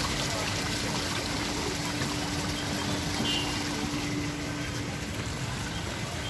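Small fountain jets in a garden water feature splashing in a steady trickle, with a faint steady hum that stops about five seconds in.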